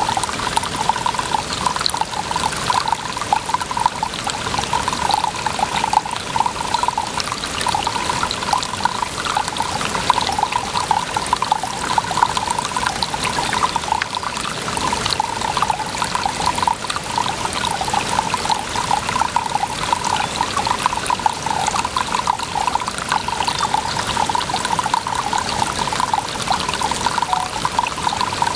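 Water running and splashing continuously, a steady trickling pour with a fine, fast patter and no pauses.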